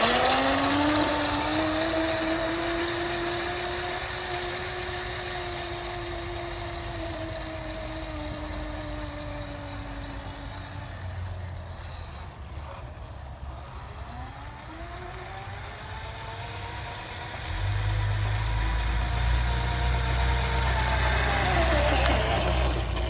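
Razor E200 electric scooter's chain-driven motor whining as it pulls away, its pitch rising at the start, then sinking slowly and fading out about halfway through. It whines again as the scooter comes back, growing louder, with a low rumble joining in and the pitch falling away near the end.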